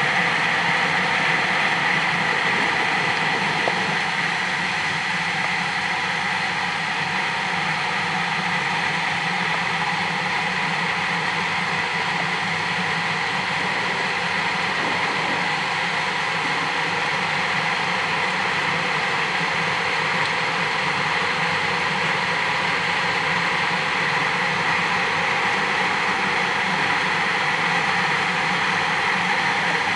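Steady mechanical hum with a high whine, heard underwater, with no breaks.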